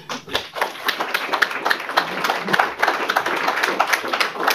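Audience applauding, many hands clapping at once in a dense, even patter.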